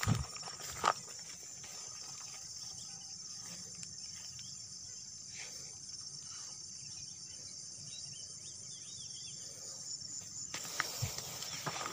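Evening insect chorus: a steady, high-pitched trill of crickets or cicadas. There are a couple of knocks about a second in, and rustling handling noise near the end.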